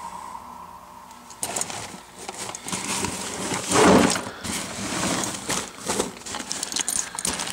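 Irregular knocks, clunks and scraping of a plastic equipment box being handled in a compartment, starting about a second and a half in and loudest about four seconds in.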